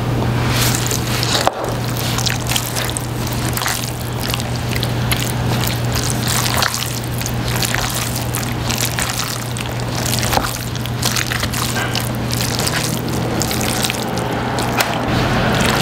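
Chopsticks stirring and lifting jajangmyeon noodles through thick black bean sauce: many short, irregular wet clicks and smacks. A steady low hum runs underneath and stops shortly before the end.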